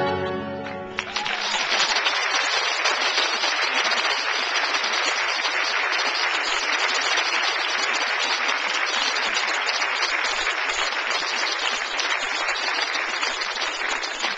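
Large audience applauding, a dense, steady clapping that starts about a second in as the orchestral music ends.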